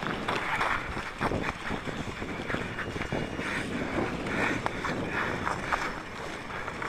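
Footsteps crunching on snow-covered ice, in short irregular steps, with wind buffeting the microphone.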